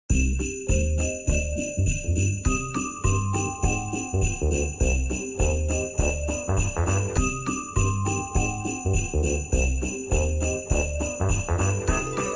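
Festive background music led by jingling sleigh bells, over a steady pulsing bass beat with a simple stepping melody.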